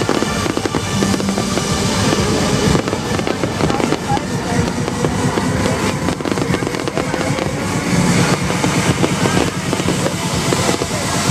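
Fireworks going off in a dense run of crackles and bangs over loud music from the festival sound system.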